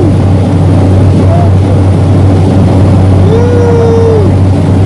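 Small propeller plane's engine and propeller droning steadily, heard loud from inside the cabin in flight, with a strong low hum.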